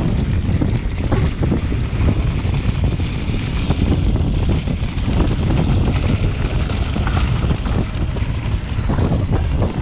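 Wind roaring over the microphone on a fast mountain bike descent, with the Orange Stage 6's tyres rumbling over a dirt trail and many small knocks and rattles from the bike as it runs over bumps.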